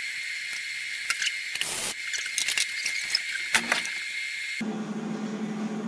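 Electric welding arc crackling and hissing in short tack welds on aluminum tube gussets, over a steady high buzz. About four and a half seconds in it gives way abruptly to a steady low hum.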